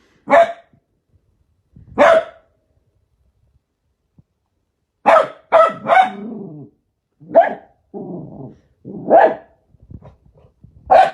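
A dog barking, about eight loud barks in all, a few spaced singly and three in quick succession about five seconds in, with a low growl after some of them.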